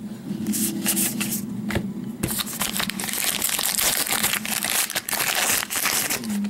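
Foil trading-card pack wrapper being torn open and crinkled: a few short crinkles, then from about two seconds in a dense, continuous crackling rustle.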